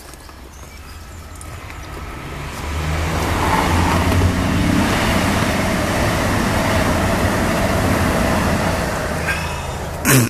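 A motor vehicle passing by: a rushing engine and road noise that builds up over a couple of seconds, holds, then eases off, ending in a short sharp knock near the end.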